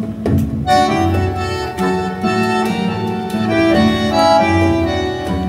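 Acoustic music from a 45 RPM vinyl LP playing over Joseph Audio Pulsar stand-mount loudspeakers in the room, a passage of held, overlapping notes that grows fuller about a second in.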